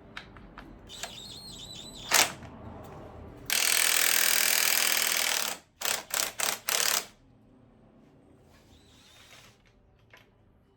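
A cordless impact driver run for about two seconds, then blipped in four short bursts. A few clicks and a sharp knock from handling metal parts come before it.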